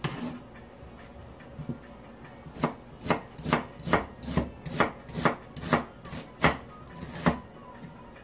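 Chef's knife slicing an onion into thin slices on a plastic cutting board. There is a single knock at the start, then from about two and a half seconds in the blade strikes the board about ten times at roughly two strokes a second.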